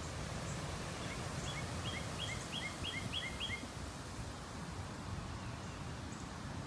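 Young Isa Brown chicks peeping: a quick run of about seven short, falling chirps starting a little over a second in, over a steady low outdoor rumble.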